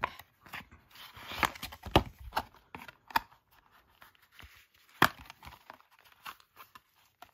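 A glossy folded paper poster being handled and folded by hand: paper rustling and crackling, with sharp snaps loudest about two seconds in and again about five seconds in.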